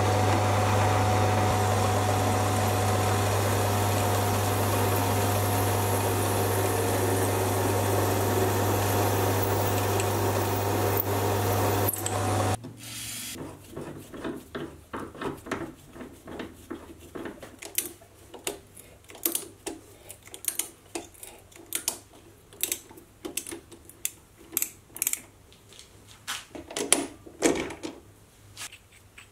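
Sieg C3 mini metal lathe running steadily with a low hum while a cutting tool turns the bar stock, then switched off about twelve seconds in. After that come scattered light metallic clicks and scrapes as a tap is turned by hand to cut a thread in the stationary part.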